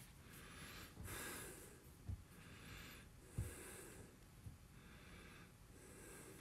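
Very faint breaths close to the microphone, a soft puff every second or two, with two brief low thumps about two and three and a half seconds in.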